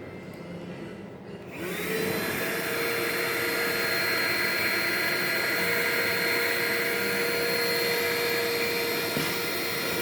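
Magnux vacuum cleaner switched on about a second and a half in: its motor spins up with a rising whine, then runs steadily with a rushing of air and a high, steady whine.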